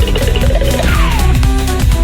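Loud electronic music with a steady beat and a falling sound effect about a second in.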